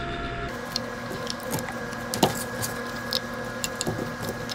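Scattered light clicks and taps of hands and tools working on the barn fan's motor while its capacitor is being removed, over a faint steady hum.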